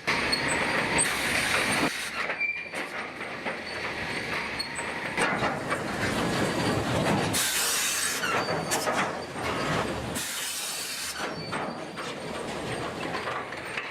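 Heavy machinery working in a log yard: continuous mechanical rumble and clatter, with short bursts of hissing at times.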